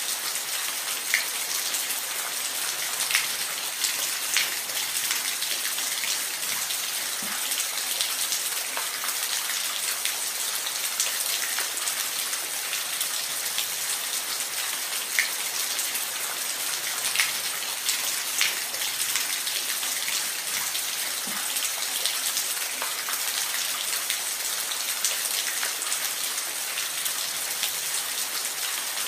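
Steady rain falling in a forest, a constant hiss with individual drops ticking close by every second or so.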